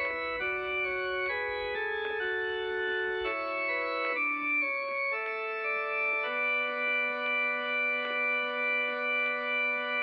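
Music: an organ-like keyboard playing sustained chords that change every half second or so, then settling about six seconds in on one held chord that wavers slowly and evenly in loudness.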